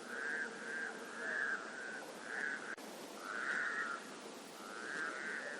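Frogs calling at a lake: a string of short trilled croaks, one after another, over a faint steady lower drone from the rest of the chorus.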